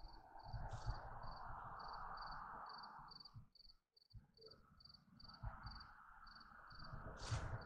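A cricket chirping steadily, about two short high chirps a second, over a faint hiss, with low thumps from the handheld camera. The sound drops out briefly midway.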